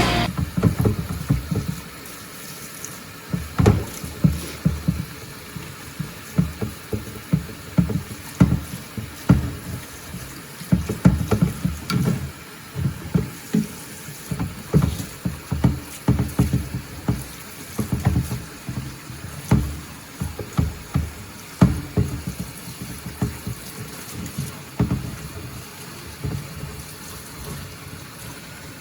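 A wet motorcycle wheel rim being scrubbed by hand: irregular rubbing strokes, a few each second, with a splashy washing sound.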